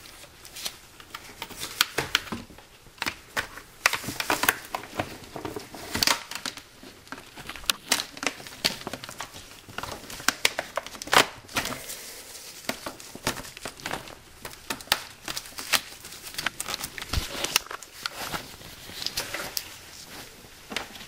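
Irregular rustling, crinkling and sharp plastic clicks from gloved hands working hoses and electrical connectors in a car's engine bay, with many quick knocks scattered throughout.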